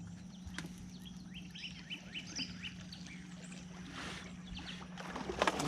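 A trolling boat's motor humming steadily, with a quick series of short chirping calls about two seconds in, then knocks and noisy splashing or rustling near the end as a caught catfish is handled at the boat.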